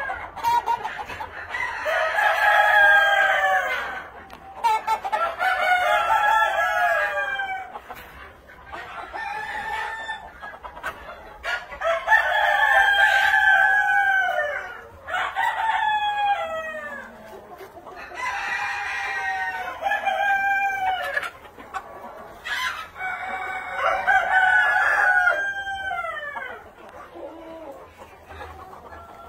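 Red Shouldered Yokohama roosters crowing in a flock: many crows in quick succession, every two or three seconds, some of them overlapping.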